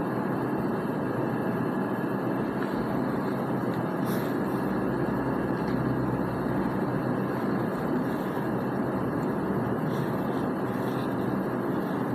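Steady background noise, an even constant rush like a fan or air conditioner, with no other distinct sound standing out.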